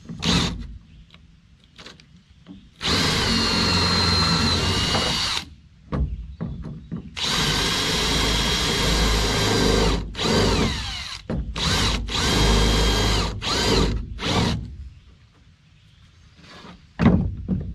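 Cordless drill boring into a metal button-head grease fitting with a small bit, drilling it out to be tapped for a standard Zerk: two long steady runs of a few seconds each, then a string of short bursts.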